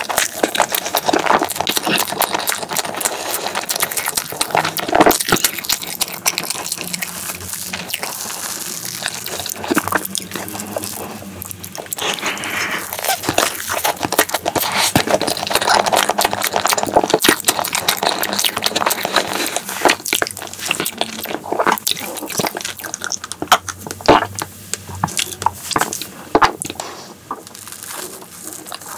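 Close-miked chewing and mouth sounds of someone eating soft chocolate crepe cake with cream: a dense run of small clicks and smacks. Near the end, the fork presses and cuts down through the layered cake.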